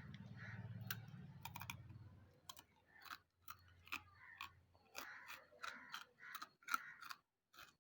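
Close-up chewing of wet slate chips: sharp, crisp crunches and bites, irregular at about two a second, with crackly grinding between them. A low hum fades out about two seconds in.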